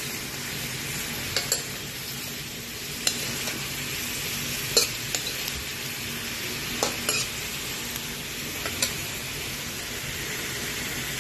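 Shrimp and squid rings sizzling steadily in a hot pan as they are stir-fried. A utensil scrapes and knocks against the pan now and then, about seven sharp clinks over the stretch.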